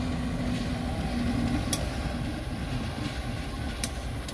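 Diesel locomotive moving a passenger train slowly past at close range while shunting: a low engine rumble with a steady hum that stops about a second and a half in, and two sharp clicks, the rumble slowly fading.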